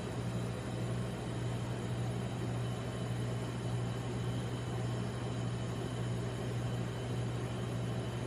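Steady low machine hum over an even hiss, unchanging throughout, with no scraping or tapping strokes.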